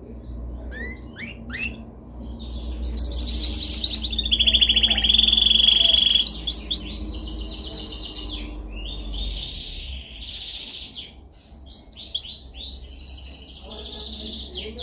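Domestic canary singing a continuous song of rapid trills and rolls, loudest and most sustained about three to six seconds in, then moving through other rolls. A low hum lies underneath for most of the first nine seconds.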